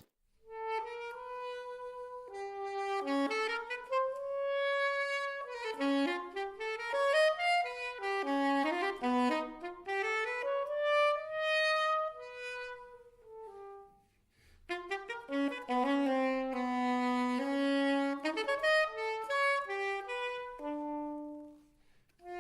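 Music: a solo saxophone playing a melody one note at a time, with a short break a little past the middle.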